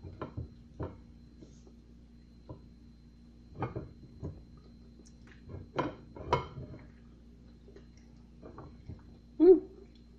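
Banana being peeled and bitten by mouth alone on a plate: scattered short wet clicks, peel tearing and knocks against the plate, over a low steady hum. A short voiced grunt from the eater comes near the end.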